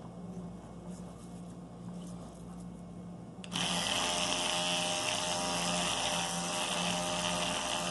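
Electric toothbrush switched on about three and a half seconds in, then buzzing steadily as its head scrubs toothpaste over a scratched watch crystal to polish it. Before that there is only a low hum and faint handling.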